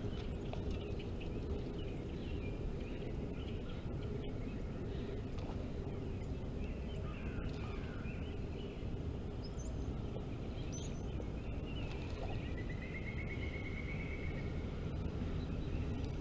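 Birds chirping and calling, with a rapid trilled call lasting about two seconds near the end, over a steady low background rumble.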